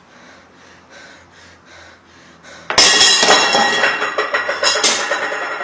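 A sudden loud crash and clatter of dishes and glassware about two and a half seconds in, ringing on, with a second sharp crash near the end.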